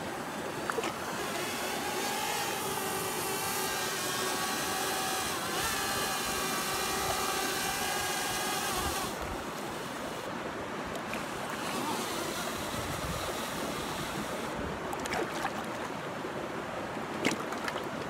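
Whitewater river rapids rushing steadily. Over it for the first half, the steady whine of a DJI Mavic Air drone's propellers, which stops about nine seconds in; a sharp click near the end.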